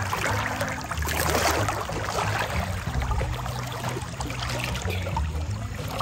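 River water sloshing and splashing around a person sitting chest-deep in a flowing river, over a low, uneven rumble.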